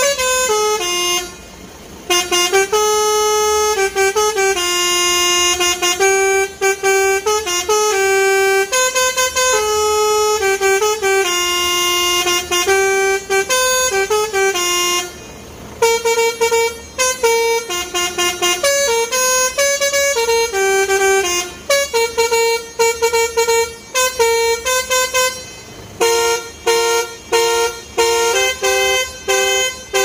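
Telolet horn on a Mercedes-Benz Actros truck: a set of pitched air horns playing a tune note by note, with two short breaks, one near the start and one about halfway. Near the end the notes turn short and come in quick succession.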